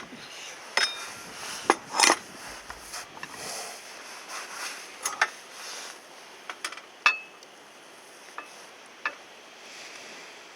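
Metal cookware and utensils clinking and knocking: a scatter of sharp knocks, some ringing briefly.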